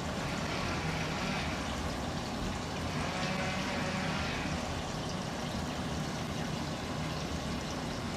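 Wind rushing over the microphone: a steady low rumble and hiss.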